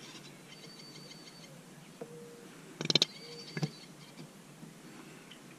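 Faint steady background with a few thin high tones, broken about three seconds in by a quick cluster of sharp clicks and one more click shortly after.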